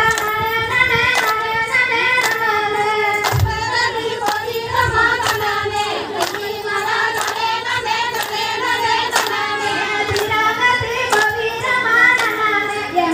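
Women's group singing a kummi folk song, with the dancers' hand claps landing on the beat about once a second.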